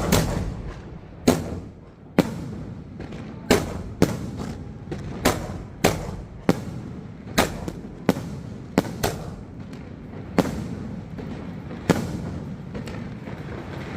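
Sony Fireworks '21st Century' firework going off in a rapid series of sharp bangs, about one a second, each with a short echo. The bangs stop near the end, leaving a low rumble.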